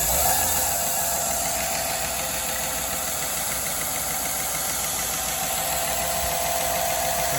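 Black Fox One 2x72 belt grinder's motor and abrasive belt running steadily at speed on its variable-frequency drive: an even hiss with a constant mid-pitched hum, smooth and free of knocks.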